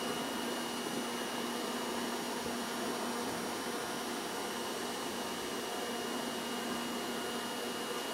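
Steady hum inside the cab of a Fukui Railway 770-series tram rolling slowly along street track, with a constant low drone and a thin high whine.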